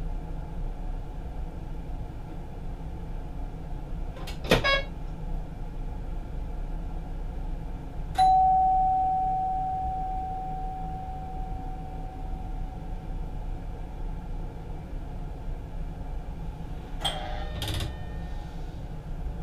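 Steady rumble inside the cab of a Mat '64 electric train. About eight seconds in, a single bell-like chime from the cab equipment rings out and fades over several seconds. A sharp click with a short rattle comes about four seconds in, and a few knocks near the end.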